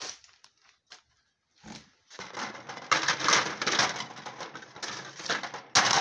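Plastic crinkling and crackling as a clear plastic box and its wrapping are handled, after a couple of sharp clicks and a dull knock in the first two seconds.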